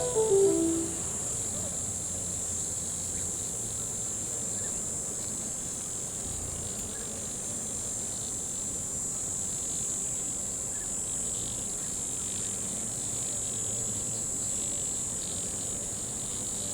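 Steady, high-pitched chorus of insects, a continuous hum that holds unchanged throughout. A few falling notes of background music fade out in the first second.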